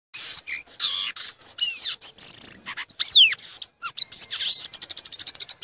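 Varied bird calls in quick succession: high chirps and whistles, a steeply falling whistle about three seconds in, and a fast trill of rapid repeated notes near the end.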